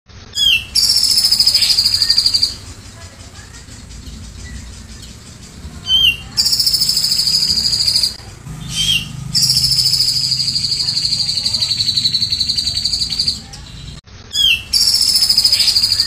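Grey-cheeked bulbul (cucak jenggot) singing a cililin-style 'tembakan' song. It gives four long, rapid, rattling trills that fall slightly in pitch, each opened by a short rising note, with short pauses between.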